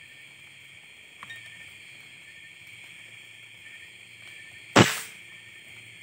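A single sharp shot from a scoped rifle about five seconds in, over a steady chorus of night insects; a faint click comes about a second in.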